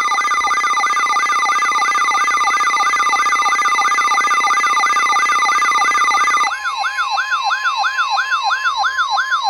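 Electronic siren alert tone: a fast yelp-like warble sweeping up and down about three times a second over a steady high tone. About six and a half seconds in, the steady tone changes to a lower one while the warble carries on.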